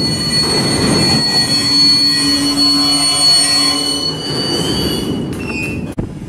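Freight cars rolling past at close range: the rumble and clatter of the trucks on the rail, with wheels squealing in several steady high-pitched tones. A sudden break shortly before the end.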